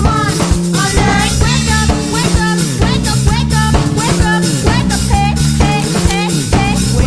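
Background music with a steady drum-kit beat, bass and a gliding melody.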